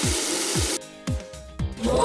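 Car-wash foam spray hissing over background music with a steady beat; the spray cuts off abruptly under a second in, leaving the music.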